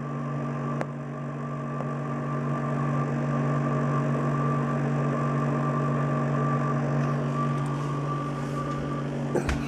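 Steady machine hum: a strong low drone with a thin, constant high whine above it.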